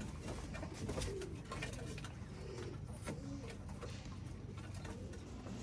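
Birmingham roller pigeons cooing softly, with many scattered light taps and clicks in between.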